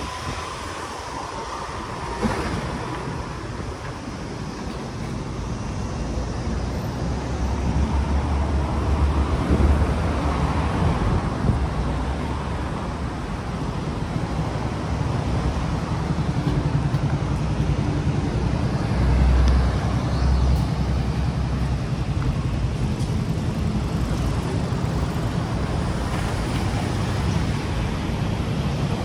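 City street traffic: cars passing steadily, with louder swells about a third and two thirds of the way through.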